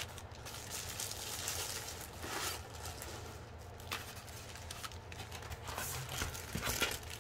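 Faint, intermittent rustling of plastic packaging as craft kit items are handled and moved on a desk, over a low steady hum.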